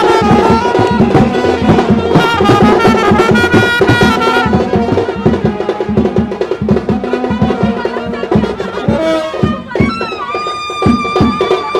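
Lively Indian band music with brass and a fast, steady drum beat; a long held wind-instrument note comes in near the end.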